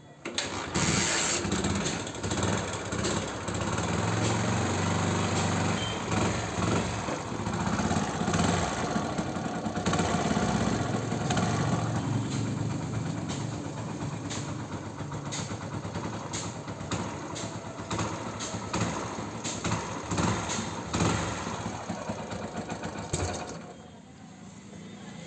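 Hero Splendor Plus's small single-cylinder four-stroke engine starts about half a second in and runs with its speed rising and falling under the throttle. It drops quieter near the end. This is the test run after a cylinder head rebuild, to check whether the whistling, air-escaping noise under acceleration has gone.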